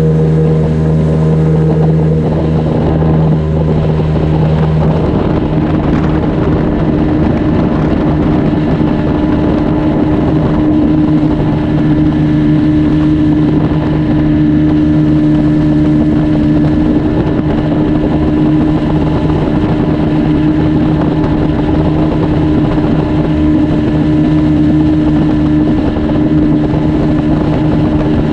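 Outboard motor of a flats skiff running steadily with the boat underway at speed, its note shifting slightly about five seconds in.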